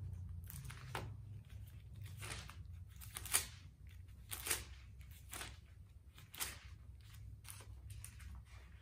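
Thin Bible pages being turned and rustled by hand: a string of short, crisp paper rustles, the loudest about three and a half seconds in, over a low steady hum.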